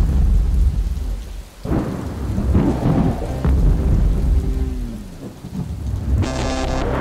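Logo-intro sound effects: a loud, deep rumble with a noisy wash over it. It dips about one and a half seconds in, a fresh hit follows, and there are low falling tones near the middle.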